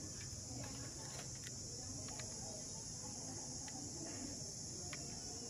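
Insects such as crickets or cicadas droning in a steady high-pitched chorus, with a few faint sharp clicks scattered through it.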